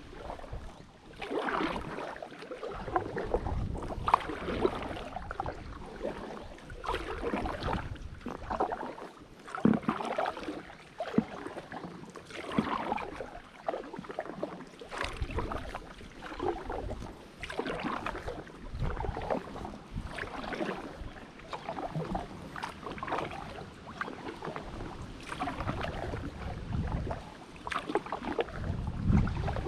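Kayak paddle strokes dipping and pulling through the water beside an Itiwit X100+ inflatable drop-stitch kayak, a splashy stroke about every second and a half, with occasional low rumbles.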